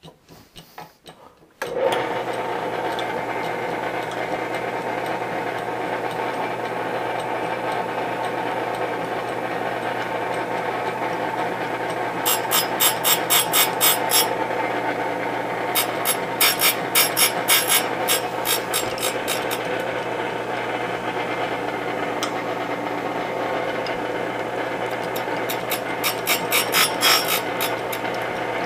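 Delta Rockwell grinder starting up after a few light clicks and running steadily with a low hum, the wheel grinding a lathe threading tool. Three times the wheel bites, giving spells of fast pulsing, high-pitched grinding noise.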